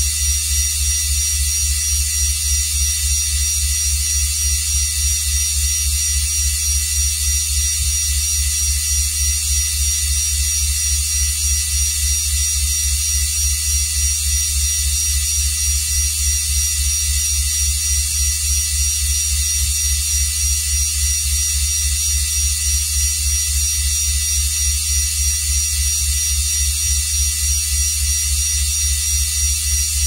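Synthesized futuristic room ambience: a steady, rapidly pulsing low electric hum under a bed of thin, high-pitched steady tones and hiss.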